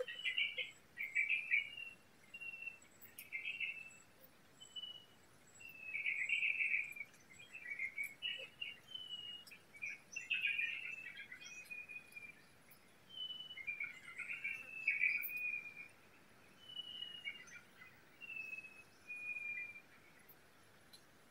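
Wild forest birds calling in short high chirps, whistled notes and trills, one after another with brief pauses.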